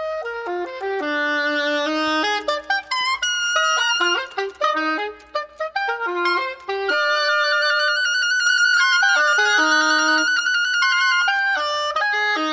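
Solo oboe playing a melody of short changing notes, then a long held note with vibrato, and settling on a low sustained note near the end.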